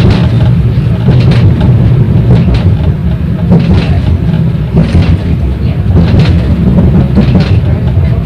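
A 71-931 Vityaz tram running along the track, heard from inside the car: a loud, steady low rumble of wheels and running gear. Sharp knocks from the wheels crossing the track come about once a second, at uneven spacing.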